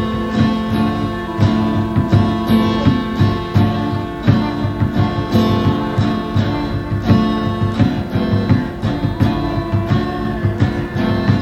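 Psychedelic rock music: a dense, repetitive drone of held tones with plucked guitar strings and a steady repeating pulse.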